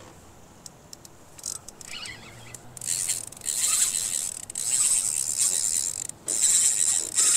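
Spinning reel being cranked hard while fighting a big fish, its gears whirring in long stretches with a short break about six seconds in, after a few faint clicks at first.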